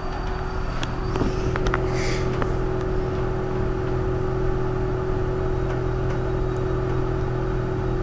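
Thyssen passenger lift travelling down, a steady hum with a constant mid-pitched tone over a low drone, and a few faint clicks a second or two in.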